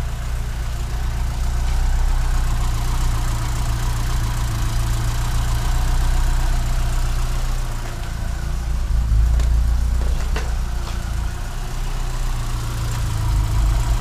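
Ford Sierra 2.0 four-cylinder petrol engine idling steadily but a little roughly, stumbling now and then. The engine has stood unused since 2013.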